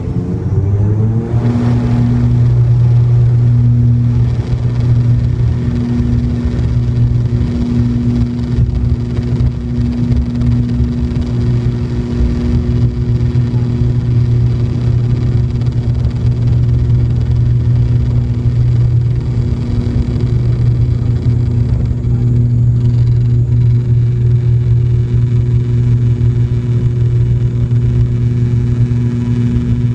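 ATR 72-500's Pratt & Whitney Canada PW127F turboprop engines and propellers, heard from inside the cabin, rising in pitch and loudness over the first two seconds as takeoff power is set. Then a loud, steady propeller drone through the takeoff roll and lift-off.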